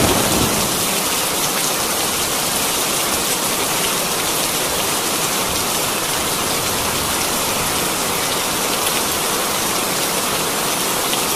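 A steady, even rushing hiss like heavy rain or escaping steam. It is loudest at the start and settles within the first second, and it serves as the eruption sound for a model volcano as white foam rises from its crater.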